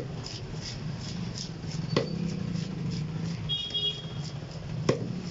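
A heavy curved cleaver chops through a large fish onto a wooden chopping block: three sharp chops about two seconds apart, over a low steady background hum.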